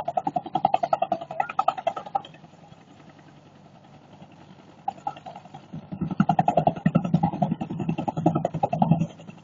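Army helicopter's rotor beating in rapid, even pulses, loud at first, dropping away about two seconds in, then coming back loud about six seconds in before fading near the end.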